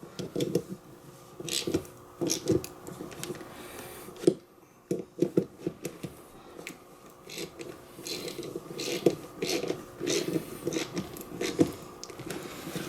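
Ratchet wrench clicking with irregular small metallic clicks and knocks, as a 10 mm terminal nut on a winch solenoid is worked.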